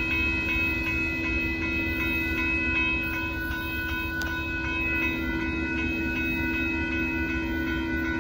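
Railroad grade-crossing warning bells ringing steadily over the low rumble of a passing Amtrak passenger train.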